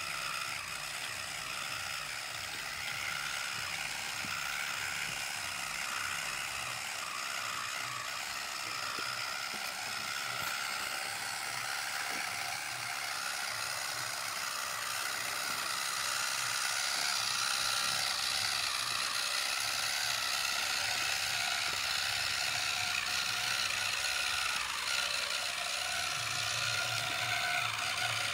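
Small electric gear motor and gearbox of a homemade model tractor whirring steadily as it drags a harrow through sand, growing a little louder about halfway through.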